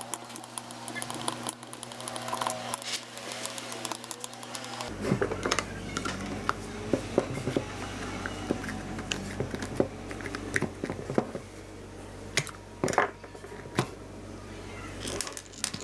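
Scattered small clicks and taps as screws are backed out and the plastic housing of an electric orbital sander is handled and opened.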